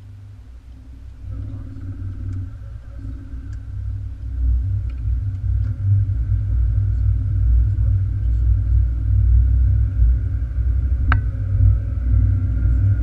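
Car driving, heard from inside the cabin: a low engine and road rumble that grows louder over the first six seconds and then holds steady. One sharp click comes about eleven seconds in.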